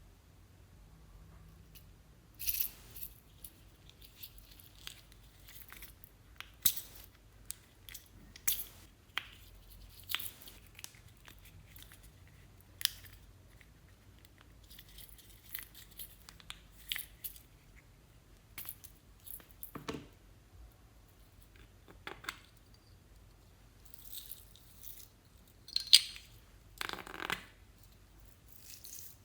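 Slime being handled and mixed by hand, with small containers and add-ins: scattered, irregular clicks, pops and crackles, with a longer crackling stretch near the end.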